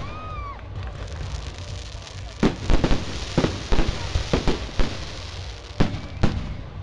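Fireworks display: aerial shells bursting in a rapid string of sharp bangs from about two and a half seconds in, with two more bangs near the end, over a crackling hiss.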